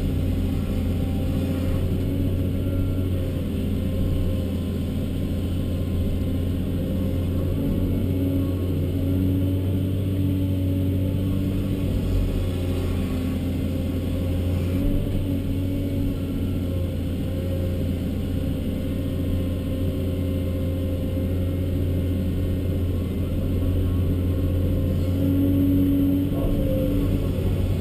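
Cat 324D long-reach excavator's C7 diesel engine and hydraulics running steadily under working load, heard from inside the cab, as the machine digs, swings and dumps mud. Its tone shifts a little near the end.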